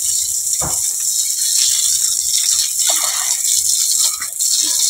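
Water from a garden hose spraying and splattering onto a wet concrete floor: a steady hiss, with a few short knocks, one about half a second in.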